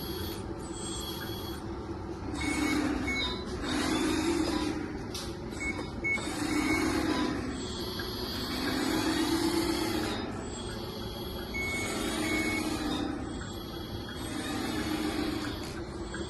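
1/14-scale Wheelfun WA480 remote-control hydraulic wheel loader running, its motors and hydraulic pump rising in swells every two to three seconds as it works. Short electronic reversing beeps sound now and then.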